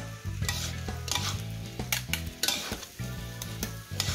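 Fried rice sizzling in a steel wok as a metal spatula and ladle scrape and toss it, with a scrape about every half second to a second.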